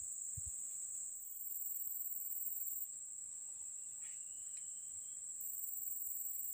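Steady, high-pitched insect chorus of crickets or cicadas droning in the forest, with a second, higher layer that drops out for a couple of seconds midway.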